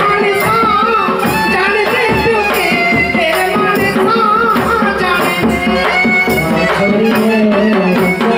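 Himachali folk song sung live into a microphone, the voice wavering over sustained harmonium chords, with steady drum and jingling percussion keeping the beat.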